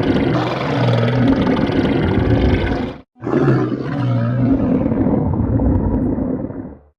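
Stomach growling: a loud, deep rumbling growl in long bursts, broken by a brief silence about three seconds in. The second burst gradually loses its higher tones and cuts off just before the end.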